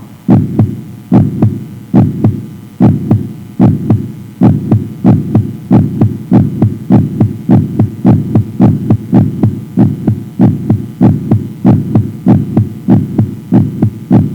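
Heartbeat sound effect: a steady train of low thumps, slow at first and quickening after about five seconds.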